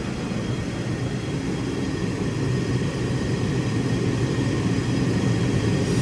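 Steady machine hum of running workshop machinery: a constant low drone under an even rushing noise, unchanging throughout.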